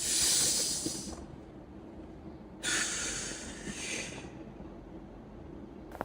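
A person breathing out hard twice in long, hissing breaths, the second about two and a half seconds after the first, as a patient does when told to exhale during a chiropractic adjustment.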